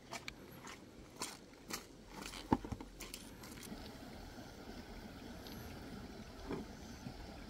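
Footsteps crunching over loose creek-bed stones, with scattered knocks, the sharpest about two and a half seconds in. Near the end, rustling and a knock as a coiled pump suction hose is hoisted onto the back.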